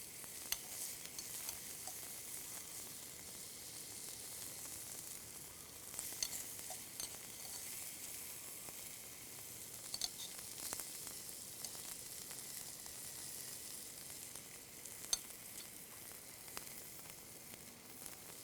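Lemongrass, garlic, chili and shallots sizzling steadily in hot annatto oil in a pan, with a few sharp clicks of a utensil stirring against the pan.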